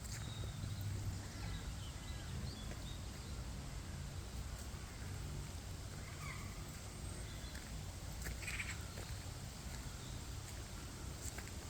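Outdoor ambience: a steady low rumble with a few short, scattered animal calls, most likely birds.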